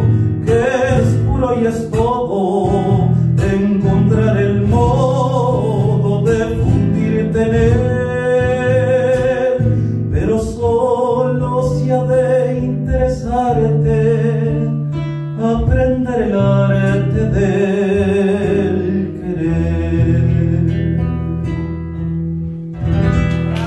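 Live acoustic guitar accompanying a male singer who holds long wavering notes over low sustained bass notes: the closing bars of a ballad.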